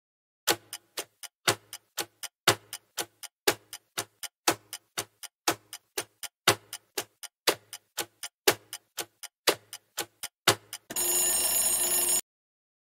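Countdown-timer sound effect: clock ticking about four times a second, a louder tick each second, for about ten seconds. Then an alarm rings steadily for just over a second as the count reaches zero, signalling time up.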